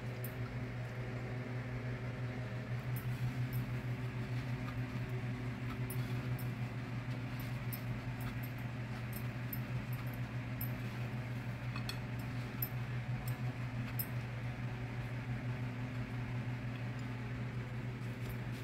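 A steady low mechanical hum, with faint scattered clicks over it.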